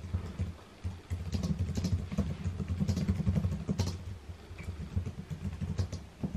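Fast typing on a computer keyboard: a dense, irregular run of key clicks with low thuds under them.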